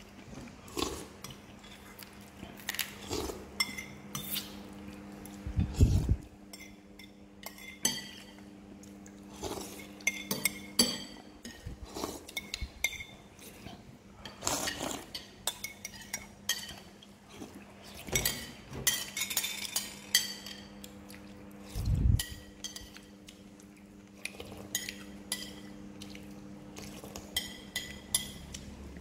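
Metal spoons clinking and scraping against ceramic bowls and plates at a meal, in many small irregular clicks. There are two heavier thumps, about six seconds in and again past twenty seconds, and a faint steady hum runs underneath.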